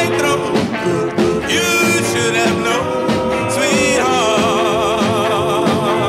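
1950s doo-wop vocal group record playing: several voices sing held harmonies over the band without clear words, and from about four seconds in the held notes waver in vibrato.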